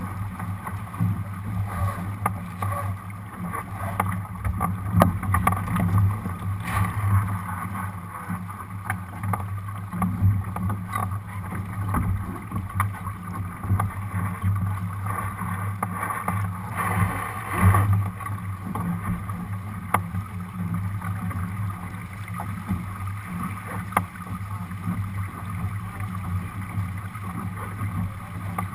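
Steady rush and slap of water along the hull of a Lightning sailboat under sail, heard through a camera mounted on its deck, with a few sharp knocks from the boat's fittings now and then.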